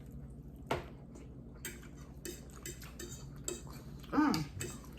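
Forks clinking and scraping against plates during a meal: a sharp click under a second in, then a run of small clinks. About four seconds in comes a brief voice-like sound, the loudest moment.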